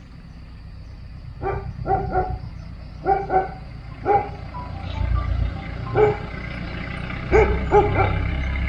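A dog barking in a string of short barks over the low engine rumble of an approaching truck, which grows louder about five seconds in.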